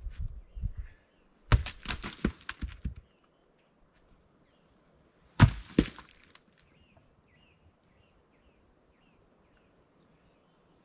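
Cut ponderosa pine log rounds thrown down a slope, knocking and thudding as they land against other logs: a run of knocks in the first three seconds, then two loud ones about five and a half seconds in.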